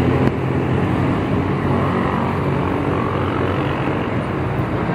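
A vehicle's engine running steadily, a low rumble heard from on board as it drives along.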